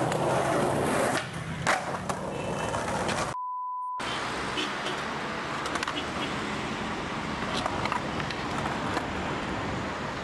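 Skateboard wheels rolling on concrete, then several sharp clacks of the board on the ground. About a third of the way in, a brief steady beep cuts in alone, followed by street noise with scattered light taps.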